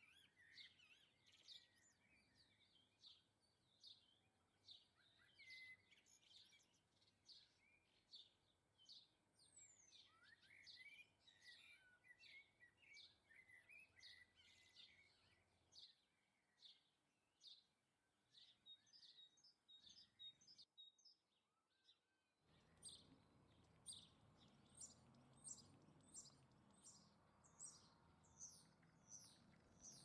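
Faint chirping and twittering of small garden birds: many short, high calls in quick succession. The calls drop out for a couple of seconds about twenty seconds in, then resume over a louder background hiss.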